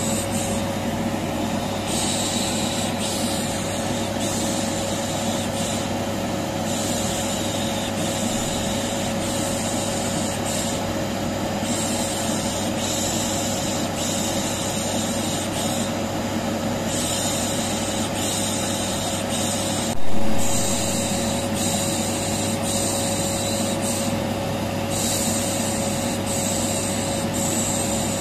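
Vacuum cleaner motor running with a steady hum, while a person shushes over it in long repeated 'shhh' sounds, each lasting a second or two. A brief louder bump about twenty seconds in.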